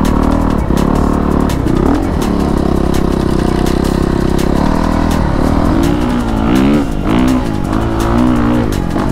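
Honda CRF450RX dirt bike's single-cylinder four-stroke engine revving under load. The pitch holds high for a couple of seconds near the middle, then rises and falls again and again with the throttle.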